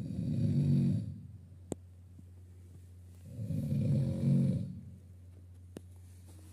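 A sleeping person snoring very loudly: two long snores about three seconds apart, each lasting a second or more, over a steady low hum.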